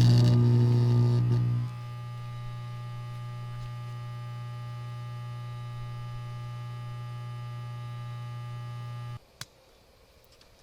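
Electric arc from a welder buzzing and crackling loudly inside a pumpkin. It goes out about 1.7 seconds in, leaving the welder's steady electrical hum. The hum cuts off abruptly about nine seconds in, followed by a single click.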